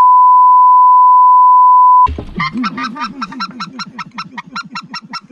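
A steady, loud beep tone at about 1 kHz for about two seconds, cut in over the sound. Then a fast run of short honking goose calls, about six or seven a second.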